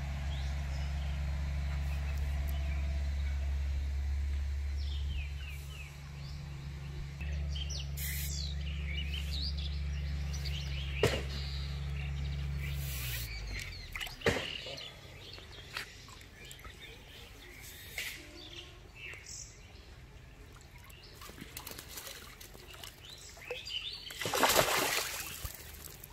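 Birds chirping over a low steady hum that stops about halfway through, with a few sharp clicks, then a loud burst of water splashing near the end as a fish thrashes in a cast net at the water's surface.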